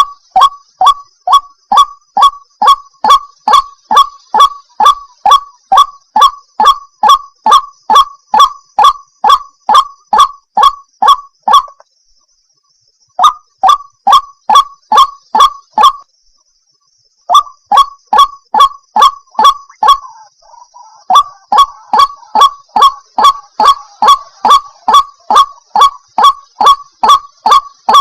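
Female white-breasted waterhen giving its monotonous call: a fast, even run of short, sharp notes, about two and a half a second. The run breaks off twice for a second or so and then resumes. It is a lure call used to draw in waterhens.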